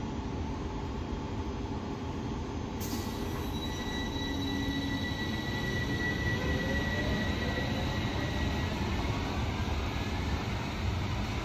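Karlsruhe Stadtbahn light-rail tram moving through an underground station. A rising whine shows it accelerating, and a high wheel squeal begins about three seconds in and holds until near the end. The sound grows louder as it goes, over a steady low rumble.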